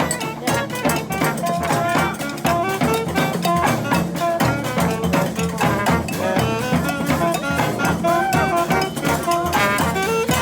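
Brass band playing a lively tune: horns carry moving melody lines over a steady, quick drum beat.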